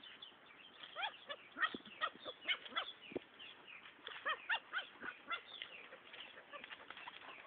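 Small dog giving a quick run of short, high-pitched yaps and whines while playing, most of them bunched in the first five seconds or so.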